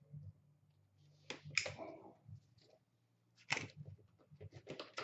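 Cardboard trading-card box being handled and its end flap pried open: scattered sharp taps, clicks and short scrapes of cardboard, in two clusters, over a faint steady low hum.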